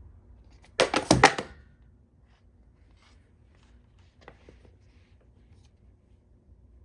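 Phone packaging being handled: a quick cluster of four or five sharp knocks and clatters about a second in, then a few faint taps.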